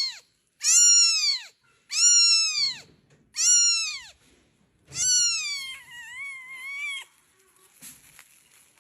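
A cat meowing over and over: about five high-pitched meows, each rising then falling in pitch, roughly a second apart, followed by a longer, quieter, wavering meow.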